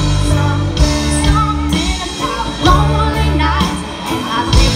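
A live band playing amplified music with a singer: steady bass, regular drum hits and a sung vocal line, loud and full.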